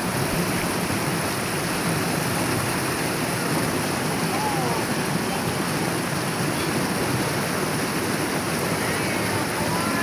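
River water rushing steadily down a narrow rock chute into a pool, a small cascade in rocky shut-ins. Faint voices are heard over it now and then.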